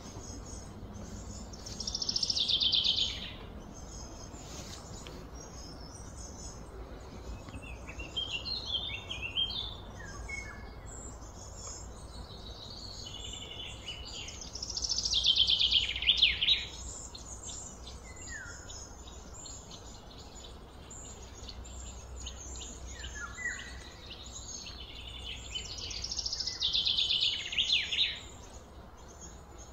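Birds calling: three loud high phrases that slide down in pitch, about two, fifteen and twenty-six seconds in, with softer chirps between them over a steady low rumble of background noise.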